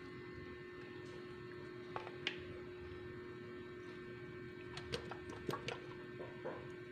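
Faint wet handling clicks and taps as hands stuff whole shrimp into the cavity of a marinated raw chicken in a stainless steel pot, a few about two seconds in and a cluster of them near the end, over a steady hum.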